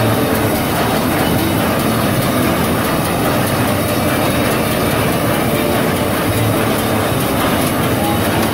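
John Deere small square baler running behind a tractor, picking up windrowed hay, its plunger clattering over the steady run of the tractor engine.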